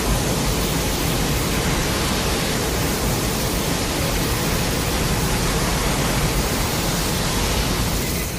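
Godzilla's atomic breath sound effect from the 2002–03 films: a long, steady rushing blast of noise, beginning to die away at the very end.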